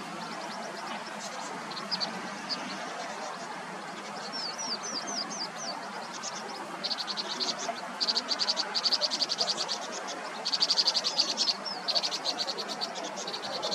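Vinous-throated parrotbills calling in thin, high chirps: scattered notes at first, a few short upslurred notes about four seconds in, then fast, dense chirping runs from about seven seconds on, over a steady background hiss.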